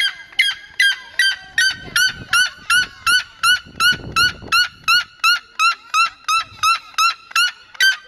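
Red-legged seriema calling: a long, steady run of loud, short yelping notes, about two and a half a second, evenly spaced.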